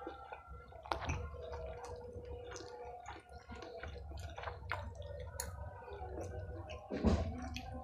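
Close-miked wet chewing of batagor (fried fish dumplings in peanut sauce): many small sticky clicks and lip smacks, with a louder mouth noise about seven seconds in.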